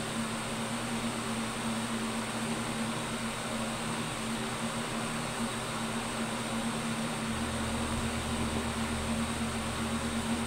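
A steady mechanical hum with a strong low tone; a deeper rumble joins it about seven seconds in.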